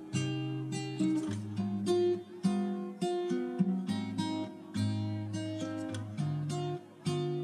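Instrumental background music: a guitar picking out a tune, one plucked note or chord after another.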